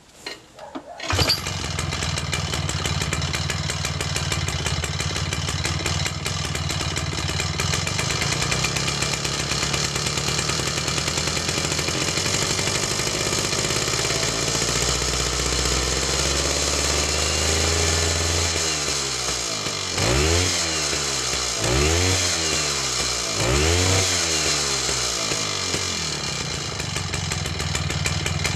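Two-stroke MF-70 single-cylinder engine with VAPE contactless ignition starting after a couple of short knocks about a second in, then running steadily. From about two-thirds through, its speed rises and falls repeatedly, about every one and a half to two seconds.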